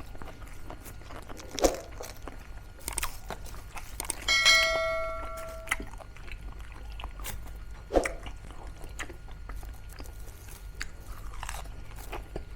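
Crisp bites and chewing of crispy air-fried pork mesentery (chicharong bulaklak), heard as scattered crunches. About four seconds in, a clink rings out and fades over a second and a half.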